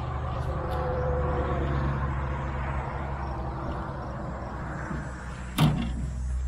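Steady low outdoor rumble, with a single sharp knock about five and a half seconds in.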